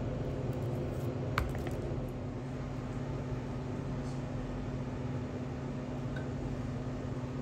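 Steady mechanical hum of kitchen machinery, with one light clink about a second and a half in.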